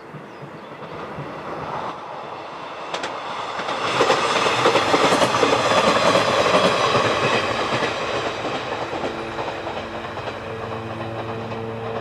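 A train passing by: its running noise swells to a peak and then fades, with wheels clicking over the rail joints.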